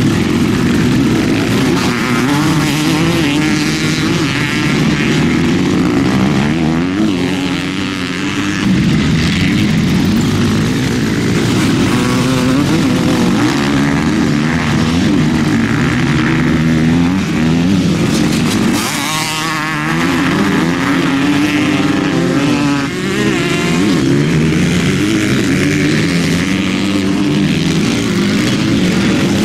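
Several motocross bikes racing past together, their engines overlapping and revving up and down again and again as they are ridden hard through the turns.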